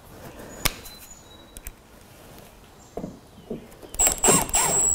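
Milwaukee cordless driver motor starting about four seconds in with a high whine, stuttering on and off briefly as it drives a Torx Plus bolt back into the hood fairing. Before that, a sharp knock and a few light clicks of the tool being handled.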